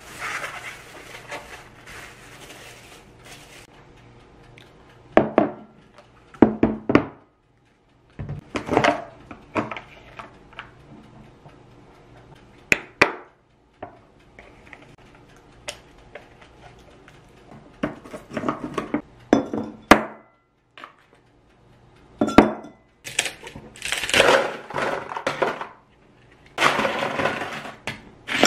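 Plastic wrap crinkling at first, then a string of sharp knocks, cracks and clinks as ice is twisted out of plastic ice trays and silicone molds and dropped into a glass, busiest near the end.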